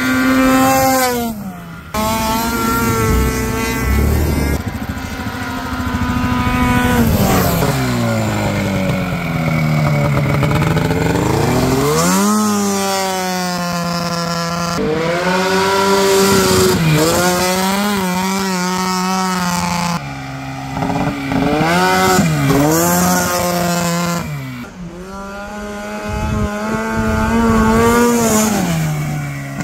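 Ski-Doo 670 Rotax twin-cylinder two-stroke snowmobile engine in a Honda Pilot buggy, revving hard and easing off again and again as it is driven. The pitch rises and falls, with abrupt jumps about every few seconds where clips are cut together.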